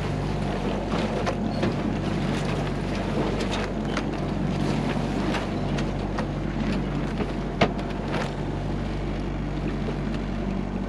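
Sailboat's inboard engine running steadily, with water rushing and slapping against the hull in rough, turbulent seas and wind on the microphone. A sharp knock about three-quarters of the way through.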